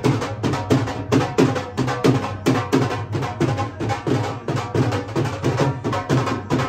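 Music with a steady drum beat and sustained melody over it.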